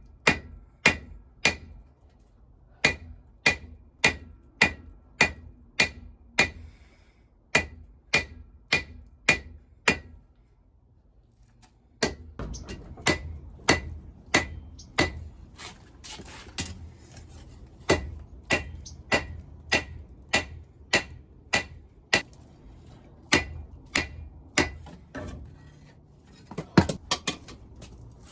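Blacksmith's hammer striking hot steel on an anvil while forging a sword blade, about two blows a second, each with a bright metallic ring. The hammering stops for about two seconds near the middle, then carries on over a low steady background rumble.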